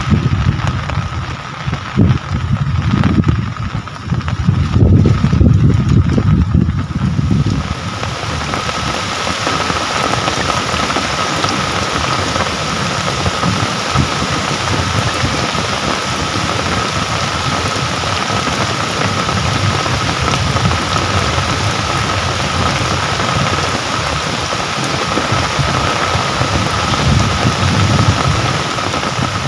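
Steady rain hiss. A heavy low rumble comes and goes over it for about the first seven seconds, and a thin steady high tone runs through it.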